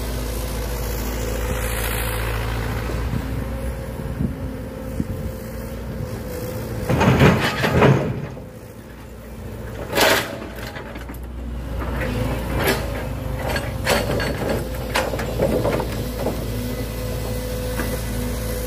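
Komatsu excavator engine running steadily while its grapple handles logs. There is a loud clatter of wooden logs about seven seconds in, a sharp knock about ten seconds in, and several more knocks of logs in the second half.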